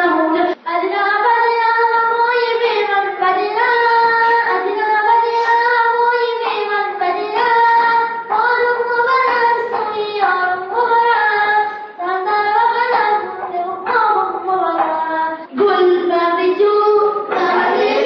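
A child singing a song solo and unaccompanied in a high voice, the notes held for a second or more and sliding between pitches.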